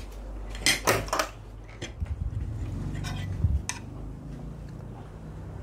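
Spoon and fork clinking and scraping against a plate of rice while eating, with several short, sharp clinks spread through.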